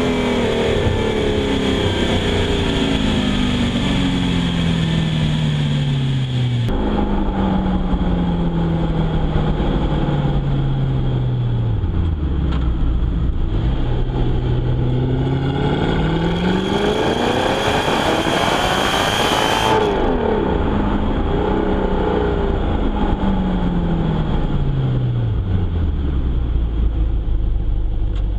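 Audi R8's 4.2-litre V8 exhaust note: the revs fall away over several seconds, and a sudden change comes in about a quarter of the way through. The engine then revs up to a high-pitched peak around two-thirds of the way through, falls back, and settles to a low steady idle near the end.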